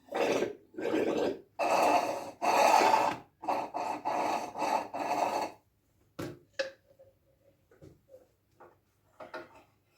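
About seven rubbing strokes in a row, each under a second, followed by a few light clicks and taps.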